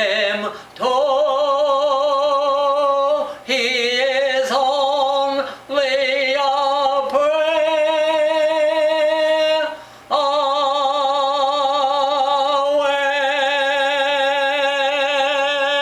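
A man singing a hymn a cappella in an operatic tenor style: a few short phrases of held notes with a strong vibrato, ending on one long final note held for about six seconds.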